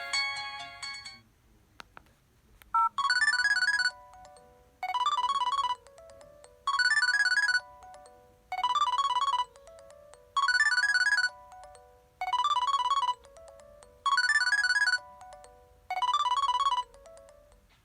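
An LG B470 phone's speaker playing a preloaded ringtone: a short electronic phrase of several quick notes, repeated eight times about every two seconds, then it stops. The end of the previous ringtone fades out in the first second or so.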